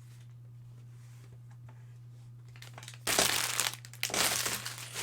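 Cellophane and plastic wrapping being crinkled and torn open on a box of trading-card fat packs, in two loud bursts about three and four seconds in, after a few quieter seconds of faint handling ticks. A steady low electrical hum runs underneath.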